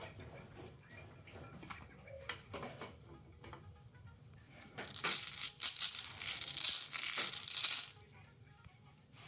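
Marbles on a marble run: scattered light clicks, then about five seconds in a burst of rapid rattling and clacking lasting about three seconds that stops suddenly.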